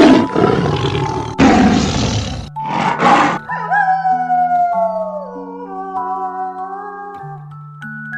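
Lion roaring: two long, rough roars and a shorter third one. These are followed by a long, falling, wavering animal howl, over soft chiming background music.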